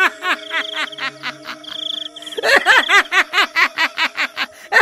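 High-pitched cartoon baby laughter: a demonic baby giggling in rapid repeated 'ha-ha' pulses, softer between about half a second and two seconds in, then loud again, over a steady eerie music drone.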